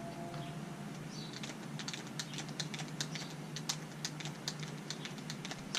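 Quick, irregular sticky clicks and smacks of grease being packed into a CV joint and its rubber boot on a Polaris RZR XP1000 axle, over a steady low hum.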